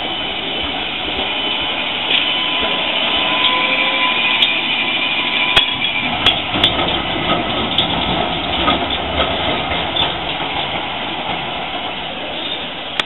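PCC street tram running along street track and passing close by: a steady rumble with a thin high whine, and several sharp clicks from the wheels on the rails as it goes by, loudest around the middle.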